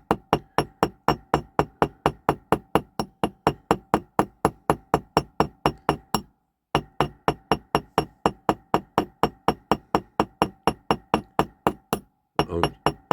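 Small hammer lightly and rapidly tapping the end of a toy car's steel axle against a metal block, about four ringing metallic strikes a second, with two short breaks. The axle end is being peened over round its edge, with the weight of the hammer doing the work.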